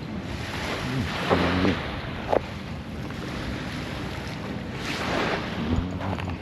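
Surf washing onto a beach, swelling about a second in and again near five seconds, with wind buffeting the microphone.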